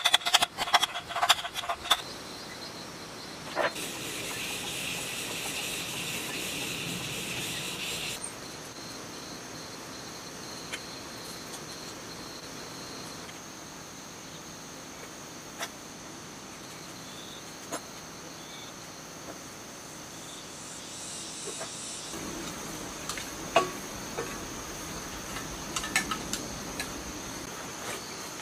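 A hammer taps several times on the generator's end cover to seat it, each strike ringing briefly, in the first two seconds. After that, insects chirr steadily in the background, with a higher hiss from about four to eight seconds in and scattered light clicks near the end as wiring and small parts are handled.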